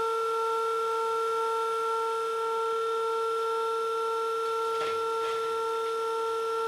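Electric motor and hydraulic pump of a log-splitter forging press running with a steady whine. A couple of short metallic clicks or knocks come about five seconds in.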